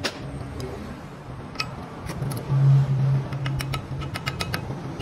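Light metallic clinks and taps, a few at first and then a quick run of them in the last second and a half, over a steady low machine hum.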